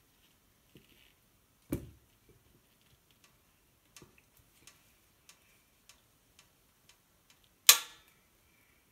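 Plastic kitchen tongs handled on a tabletop: faint scattered clicks as they open and close, a soft knock about two seconds in, and a sharp loud clack near the end as they strike the ceramic bowl while setting a banana half into it.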